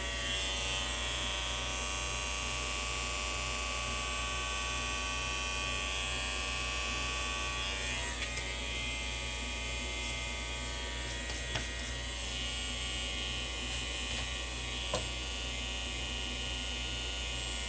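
Corded T-blade hair trimmer running with a steady electric buzz as it is worked along the nape of the neck to clean up the hairline. A few faint ticks come through about two-thirds of the way in.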